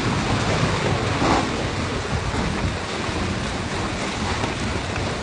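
Storm wind and heavy rain: a steady, loud rushing hiss with a stronger gust about a second in.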